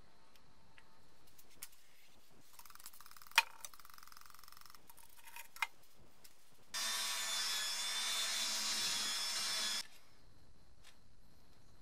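Fuel level sender's float slid along its guide rods with a dry, fine scraping rasp and a sharp click; the float is not yet moving freely. Then an aerosol cleaner can sprays in a steady hiss for about three seconds and cuts off.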